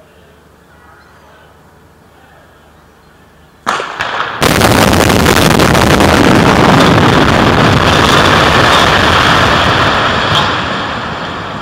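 Explosive demolition of a multi-storey car park: a few sharp bangs of the charges firing about four seconds in, followed at once by the long, loud rumble of the structure collapsing, which slowly fades near the end.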